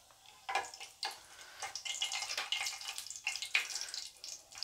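Cumin seeds and whole spices (black pepper, cinnamon, cloves, cardamom) crackling and sizzling in hot oil in a steel pan, busier from about two seconds in. A steel ladle knocks and scrapes against the pan a few times as the spices are stirred.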